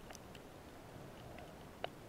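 Underwater ambience picked up by a camera in its housing: a faint, even hiss with a few sharp clicks, the loudest near the end.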